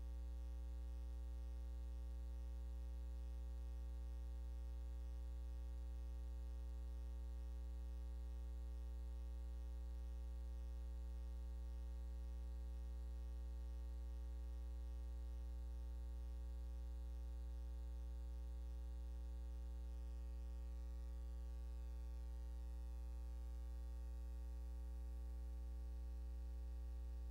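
Steady electrical hum with a faint hiss: a low mains-type buzz with evenly spaced overtones, unchanging throughout. It is the noise floor of a silent film transfer, with no sound from the boats or water.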